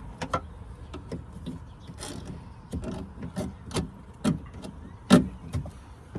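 Plastic pry tool working around a car's interior door trim: a string of irregular clicks, knocks and creaks of plastic against plastic, the loudest about five seconds in.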